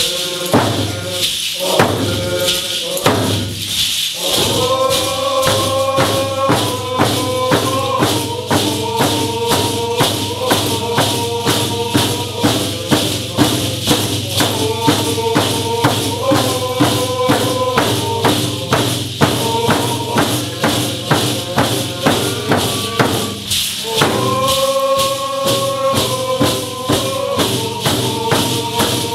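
Traditional Coast Salish drumming and singing: drums beat a steady, even rhythm while a group of voices sings together. The singing comes in strongly about four seconds in.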